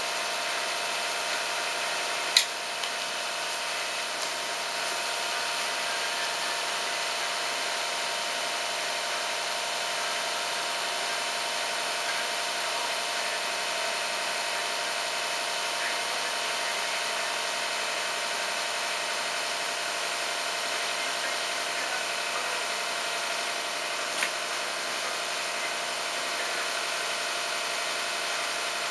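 CAT 303 mini excavator's diesel engine running at a steady speed. Two sharp knocks cut through it, one about two seconds in and one near the end.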